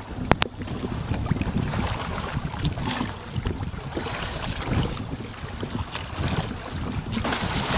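Hobie Adventure Island sailing kayak under way: wind buffeting the microphone over water rushing along the hulls, with two sharp clicks about half a second in. The water hiss grows louder near the end.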